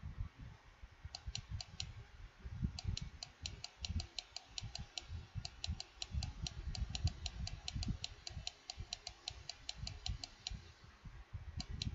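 Rapid, evenly spaced clicks of a computer keyboard or mouse, about six a second, from paging through a hanja candidate list. They start about a second in, pause briefly twice and stop shortly before the end, then resume. Dull low thumps run irregularly underneath.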